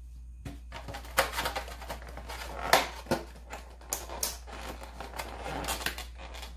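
Clear plastic takeout clamshell container crinkling and snapping as it is handled and opened, an irregular run of sharp crackles and clicks.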